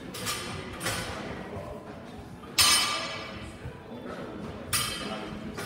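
Metal clanks of barbells and weight plates in squat racks: two loud ringing clanks about two seconds apart, the first the loudest, after a couple of lighter knocks.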